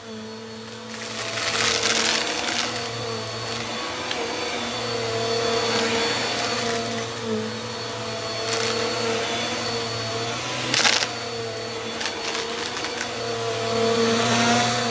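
Bissell vacuum cleaner running with a steady motor hum. Swells of rushing air noise come every few seconds, and there is one short sharp knock about eleven seconds in.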